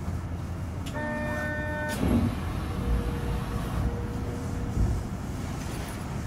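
Osaka Metro New Tram rubber-tyred automated people-mover train standing on an elevated guideway, with a steady low hum. About a second in, a single pitched tone sounds for about a second. A clunk follows, then a faint steady whine.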